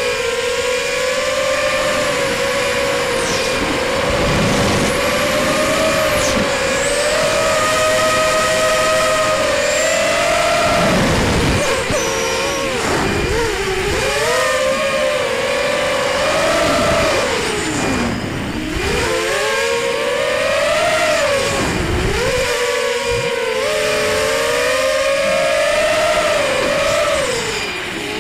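Brushless motors and 5-inch propellers of a ZMR250 quadcopter (T-Motor 1806 2300kv) whining as heard onboard, the pitch swinging up and down with throttle during freestyle flying, with a steady hiss of air.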